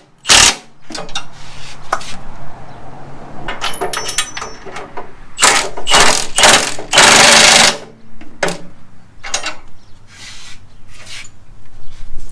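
Cordless Milwaukee impact wrench hammering bolts tight on a steel cross member in several short bursts, most of them in a cluster past the middle, the longest under a second. Lighter knocks of metal fall between the bursts.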